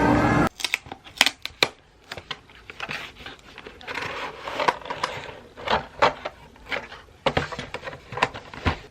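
Irregular clicks and knocks of kitchen utensils and dishes being handled, after background music cuts off about half a second in.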